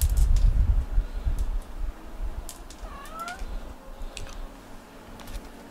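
Cat scratching in the litter of a plastic litter box, a few short dry scratches, with one short rising meow about three seconds in.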